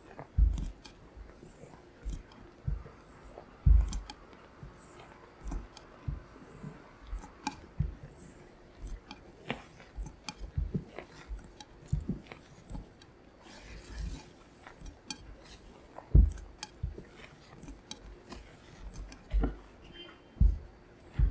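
Silicone spatula folding flour into thick whipped egg batter in a bowl: wet squelching and scraping strokes with irregular soft thumps and knocks, about one or two a second.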